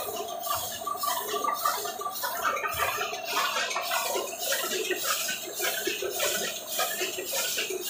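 Heidelberg GTO 46 single-colour sheet-fed offset press running, its grippers and cylinders making a regular clatter at about two to three beats a second over a steady mechanical hum.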